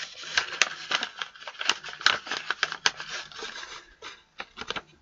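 Brown paper envelope rustling and crinkling as it is handled and rummaged through for a single paper slip, busy for about three seconds, then a few light taps and clicks near the end.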